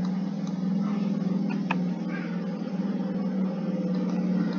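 A steady low motor hum with a rapid pulse in it, and a single click about one and a half seconds in.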